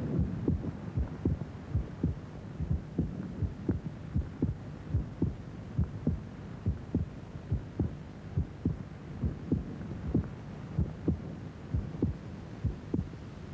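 A heartbeat sound effect: low thumps in a steady rhythm, a little over two a second, over a low hum.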